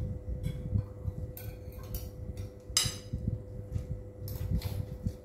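Spoon clinking and scraping against a plate during eating, with several sharp clinks; the loudest comes a little under three seconds in. A steady hum runs underneath.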